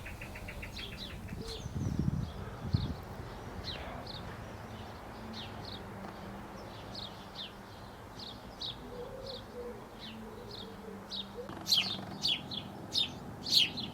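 Small garden birds chirping: a run of short, repeated chirps about every half second, growing louder over the last couple of seconds. A faint steady low hum sits underneath.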